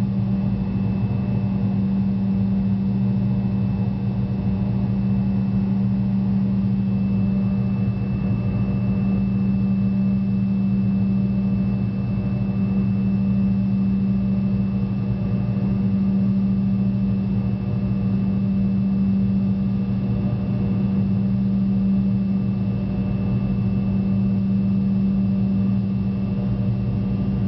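Steady cabin drone of a Fokker 100's rear-mounted Rolls-Royce Tay turbofan engines in the climb after take-off, heard from inside the cabin: an even low hum with a faint high whine above it and a rush of air noise.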